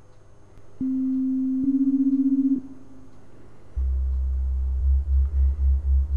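Pure sine tones from a computer: a mid-pitched tone is joined a second later by a second tone very close in pitch, and the pair beats in a rapid, rough flutter. After a short gap a low tone is joined by a close second tone that beats slowly, about four pulses a second. The beating is interference between two nearly equal frequencies, the roughness that marks dissonance.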